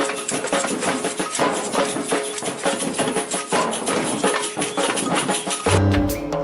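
Batucada percussion ensemble playing a fast, dense samba rhythm on drums and shakers. Near the end it cuts abruptly to different music with a heavy bass and held tones.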